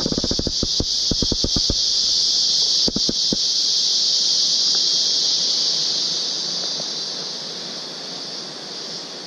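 Steady high-pitched insect chorus from the forest, easing off a little after about six seconds. In the first two seconds there is a fast run of soft low taps, and two more about three seconds in.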